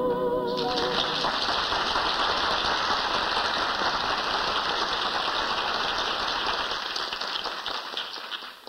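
Audience applauding as a song ends, the last sung note dying away in the first second; the clapping fades out near the end.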